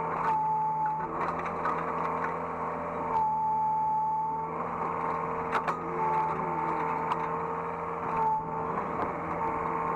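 Hydraulic excavator's diesel engine running steadily, heard from the operator's cab, with a higher whine from the hydraulics that rises and falls away several times as the machine works, and a few sharp knocks and clanks.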